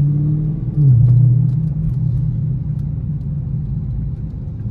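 Dodge V8 muscle car engine heard from inside the cabin, a steady low drone while cruising. About a second in the note drops in pitch and grows louder, then settles back into an even drone.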